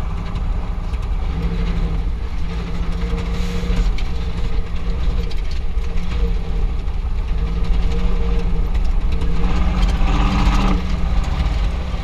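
Pickup truck engine running while the truck is driven, heard from inside the cab as a steady drone with scattered small knocks and rattles. About ten seconds in it grows louder and brighter for about a second, then settles again.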